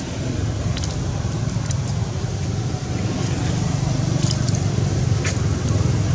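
Steady low outdoor rumble, with a few brief high-pitched chirps about a second in and again near four and five seconds.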